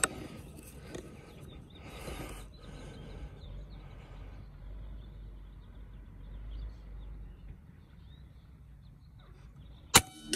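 Two shots from a .25-calibre Airforce Condor PCP air rifle firing 43-grain pellets: one sharp crack at the very start and another about ten seconds later. A fainter knock follows the second crack.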